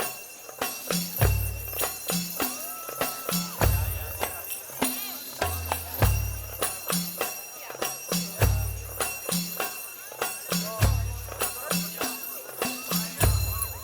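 Music with a steady beat: deep bass notes repeating at even intervals under busy, jingling percussion.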